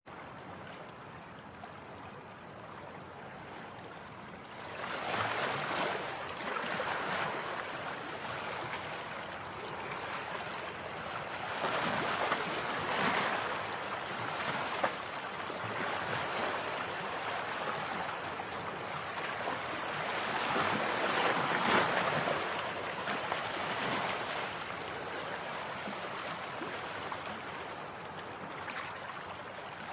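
A rushing noise with no tones in it, quiet at first, then swelling up about five seconds in and rising and easing again several times, like surf or wind.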